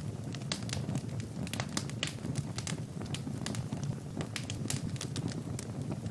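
Wood fire burning in a fireplace: a steady low rumble of flames with many irregular sharp crackles and pops from the burning logs.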